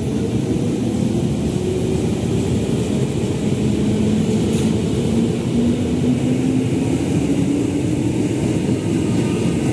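JR 205 series electric commuter train pulling out and gathering speed, a steady rumble of wheels on rails with a whine that rises slowly in pitch through the second half.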